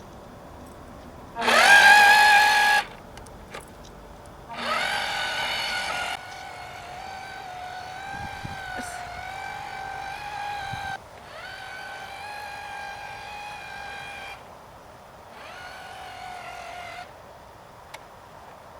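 A toy RC boat's small electric motor whining steadily under throttle, in four runs. The first and loudest run rises in pitch as the motor spins up. Three longer, quieter runs follow, with short breaks between them.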